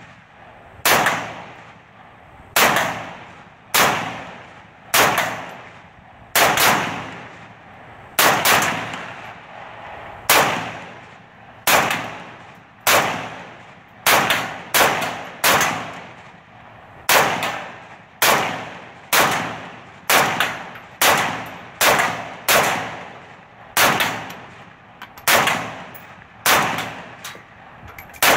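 Century Arms C39V2 milled AK-pattern rifle fired in steady semi-automatic fire, about two dozen shots at roughly one a second, a few in quicker pairs. Each shot is followed by a short echo.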